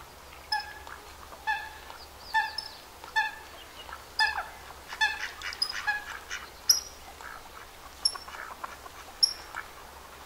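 A waterbird calling: a run of short, evenly spaced calls, about one a second, then a few short, higher notes in the second half.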